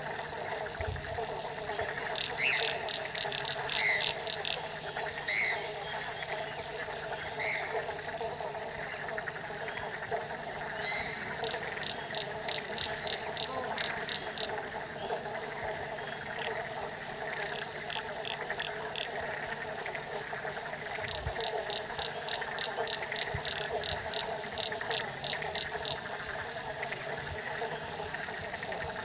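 A chorus of many frogs calling from a lagoon: a steady dense drone, with bursts of rapid ticking calls coming and going, and a few short sharp calls every second or two over the first dozen seconds.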